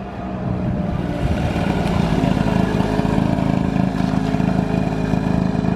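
Car engine running hard under acceleration, swelling over the first second or so and then holding steady.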